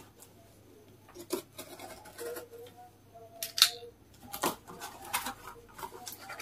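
Box cutter slicing through packing tape on a small cardboard box: short scrapes and clicks, with a sharp scratch about three and a half seconds in, then cardboard flaps being pulled open near the end.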